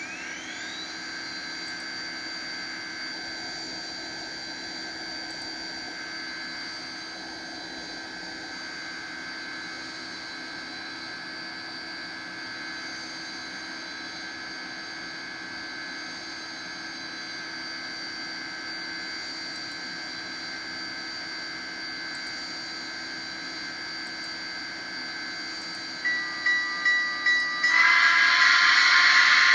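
Digital steam-locomotive sound from an ESU decoder in a Kato N scale GS-4, played through the model's small speaker: the standing locomotive's steady hiss with a high whine that rises at the start and then holds. About three seconds before the end come several short pulsing tones, then a loud, drawn-out whistle.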